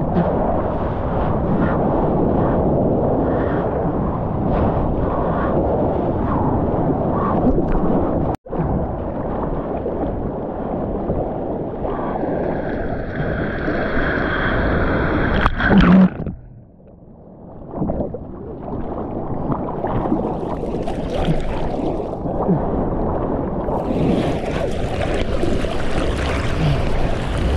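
Sea water rushing and splashing right at a surfboard-mounted action camera as it rides through whitewater and paddles over the waves. A little past halfway there is a loud splash, after which the sound turns muffled and quieter for a second or two.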